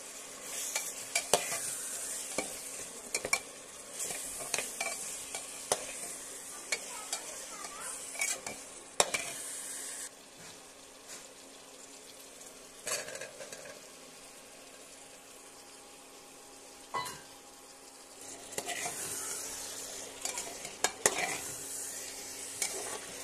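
Cauliflower frying in oil and masala in an aluminium pot, sizzling as a steel slotted ladle stirs and scrapes it, with sharp clinks of metal on metal. The sizzle dies down about ten seconds in, a soft rattle follows a few seconds later as cut raw potatoes are tipped in, and the sizzle and stirring pick up again near the end, over a steady low hum.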